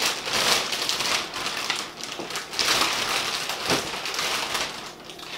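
Thin plastic packaging bags crinkling and rustling as they are handled and shifted, swelling and fading several times.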